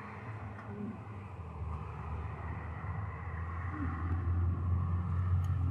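A road vehicle going by, its low engine rumble and road noise building to its loudest near the end.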